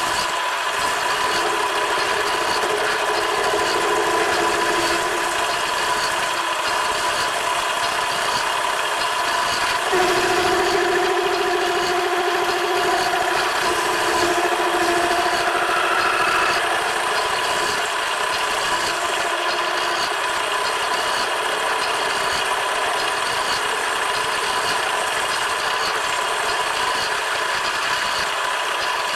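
Metal lathe running steadily, its cutting tool turning down a steel shaft, with a steady motor and gear whine. A stronger, lower cutting tone comes in about ten seconds in and fades out by about seventeen seconds.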